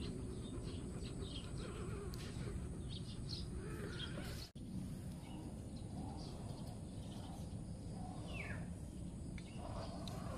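Outdoor woodland ambience: birds chirping and calling over a steady low rumble, with one falling call near the end. The sound drops out for an instant about four and a half seconds in.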